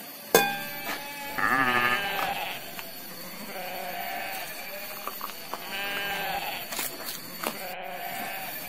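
Sheep bleating several times: one loud, quavering bleat about a second and a half in, followed by softer bleats. A short, sharp ringing knock comes just before the first bleat.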